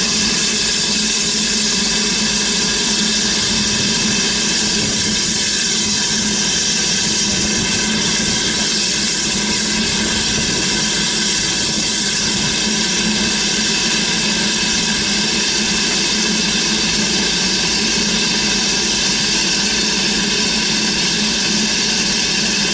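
BR Standard Class 9F 2-10-0 steam locomotive standing with steam up, hissing steadily as steam escapes, with no exhaust beats.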